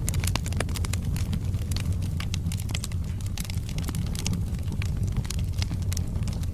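Wood fire burning in a fireplace: a steady low roar of flames with frequent sharp crackles and pops from the burning logs.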